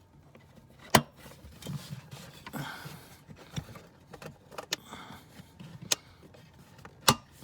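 Plastic clips of a battery cover snapping into place, with rustling and handling noise between. Two sharp snaps stand out, about a second in and near the end, with a few lighter clicks in between.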